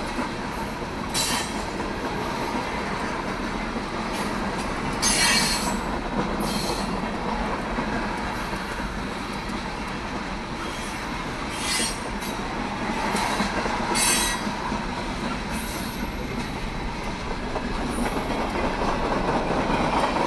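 Norfolk Southern freight train of tank cars rolling past at speed: a steady rumble of wheels on rail, with short high-pitched wheel screeches breaking through several times.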